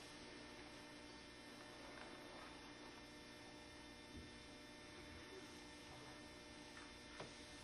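Near silence: a faint steady electrical hum, with one small knock near the end.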